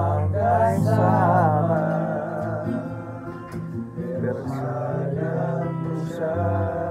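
A slow, sad ballad sung with vibrato over guitar accompaniment, with sustained low notes changing every second or two.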